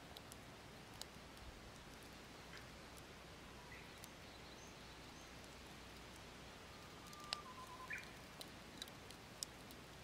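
Wood fire in a small titanium camp stove crackling faintly, with sparse sharp pops; the loudest comes about seven seconds in. A few faint bird chirps sound in the background.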